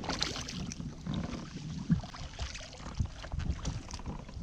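Wind rumbling on the microphone over water, with scattered knocks and one sharper thump about two seconds in.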